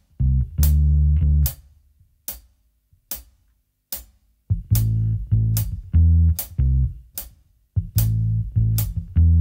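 Electric bass guitar playing a short, repeating bassline in phrases of low plucked notes with rests between them. The line comes in on beat 2. A sharp click marks every beat, about five clicks every four seconds.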